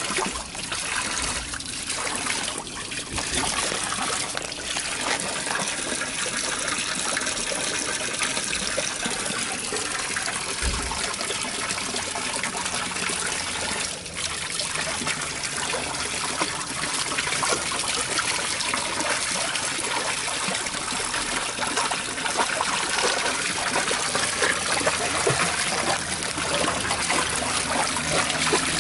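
Running water, a steady trickling and splashing.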